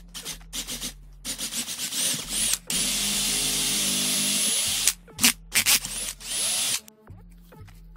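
Power drill boring holes through a battery holder, run in short bursts, then held steady for about two seconds, then in short bursts again. The holes are drilled in steps, 8 mm, then 10 mm, then 13 mm.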